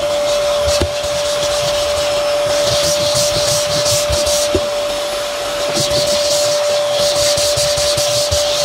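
Vacuum cleaner with a brush head attached, running with a steady high whine over a rushing hiss. The hiss swells twice, in the middle and again later, as the brush is scrubbed over the surface.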